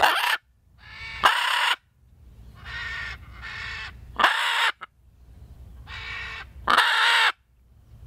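Scarlet macaw squawking: harsh calls of about half a second each, four loud ones with three fainter ones between them. These are contact calls to another macaw flying overhead.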